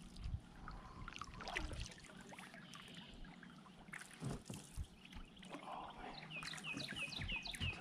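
Faint water trickling and lapping around a kayak as a paddle is worked in a strong river current, with a couple of light knocks about four seconds in. Near the end a bird sings a quick run of short, falling whistled notes.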